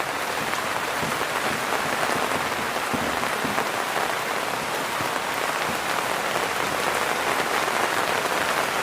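Rain falling steadily, an even, dense patter of drops.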